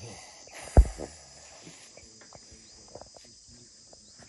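An elephant grazing: small rustling and tearing sounds of grass, with a single heavy low thump about a second in, over a steady high drone of insects.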